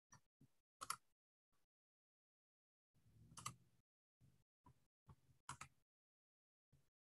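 Near silence, broken by faint, scattered short clicks and a brief low rustle about three seconds in.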